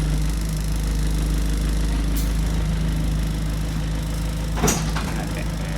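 Inside a bus, its diesel engine running steadily with a low, even drone. A faint click about two seconds in, and a short, sharper knock near the end, the loudest sound here.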